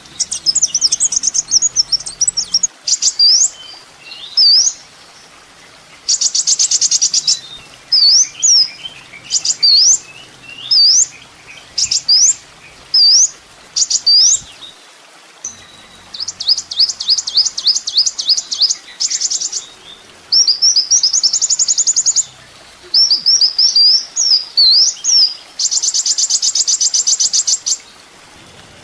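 Kolibri ninja sunbird singing a loud, high-pitched song: quick sharp up-slurred whistles alternating with fast buzzy trills and rattles, in phrases of a second or two separated by short pauses.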